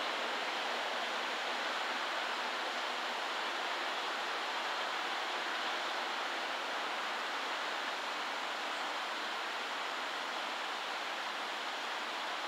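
Steady, even rushing noise with no distinct event.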